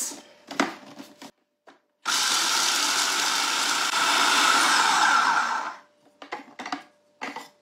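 Kenwood food processor running for about four seconds, its blade chopping pine nuts and garlic cloves with a steady whir that stops suddenly. A few short knocks come before it starts and after it stops.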